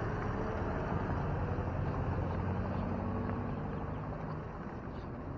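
Road traffic heard from a moving bicycle: motor vehicles running along the road as a steady low rumble, slowly fading toward the end.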